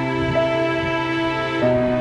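Background music of slow, held chords, moving to a new chord near the end.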